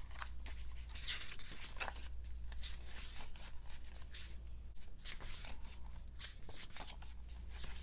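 Paper rustling as the pages of a K-pop album photobook are handled and turned: a string of short swishes and crinkles, over a faint steady low hum.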